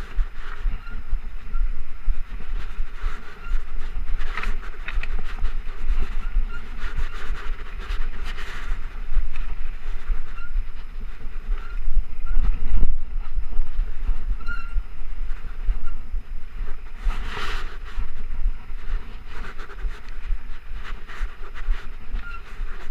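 A Trek Rumblefish Pro full-suspension mountain bike riding dirt singletrack: a steady low rumble of tyres and trail vibration, with scattered knocks and rattles from the bike over bumps, heard through a chest-mounted action camera.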